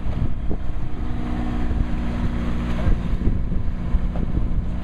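Boat engine running steadily at low speed, a low rumble with a steady hum, with wind buffeting the microphone.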